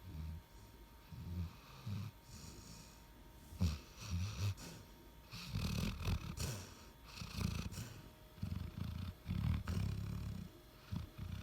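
A dog snoring in short, irregular low snores, some with a breathy hiss over them, coming more thickly in the second half.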